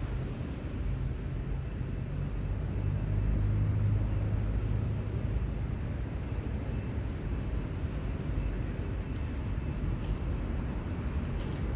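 Low, steady rumble of a distant engine, swelling slightly a few seconds in, over outdoor background noise.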